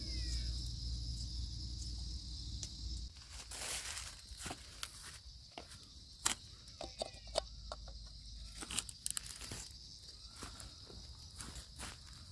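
A steady, high-pitched chorus of night insects, crickets among them, with scattered light clicks and knocks. A low hum underneath stops about three seconds in.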